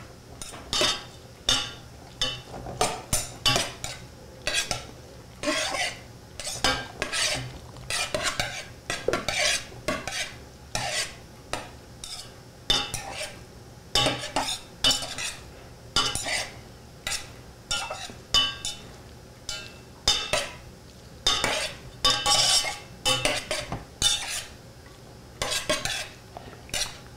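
Metal utensil stirring cooked spaghetti with butter in a steel saucepan, scraping and clinking against the pot in irregular strokes about one or two a second.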